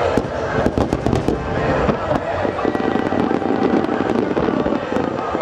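Barrage of large aerial firework shells (shakudama) bursting in rapid succession: many sharp bangs, thickest in the first second or so, over a continuous rumble and crackle.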